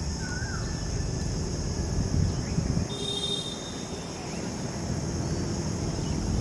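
Rural outdoor ambience: a steady high insect drone, with a short wavering bird call just after the start and a brief high call about three seconds in.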